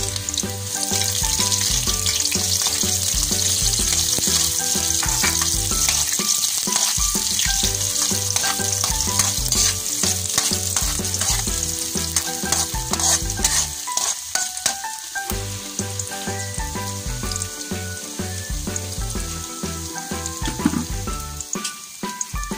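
Sliced onions and garlic sizzling in hot oil in a wok, stirred with a metal spatula that clicks and scrapes against the pan. The sizzle is loudest in the first half and eases off later on.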